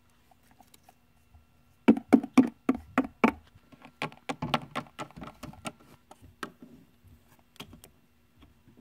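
Light clicks and knocks of a hard plastic toy figure being hopped along wooden blocks and tabletop props to act out walking. A quick run of about six taps comes about two seconds in, a looser scatter follows a couple of seconds later, then a few single taps near the end.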